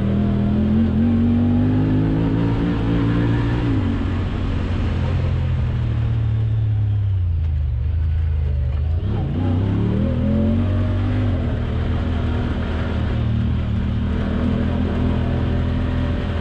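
Off-road vehicle's engine running under way, the revs climbing for the first few seconds, easing off from about four seconds in to a low near the middle, then picking up again and holding steady.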